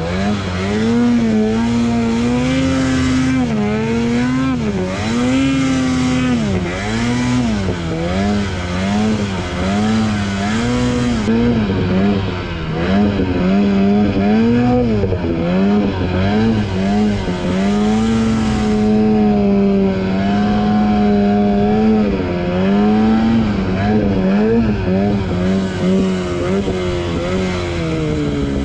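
Ski-Doo snowmobile engine running hard through deep powder, its pitch rising and falling over and over as the throttle is worked, with a rushing hiss of snow over it.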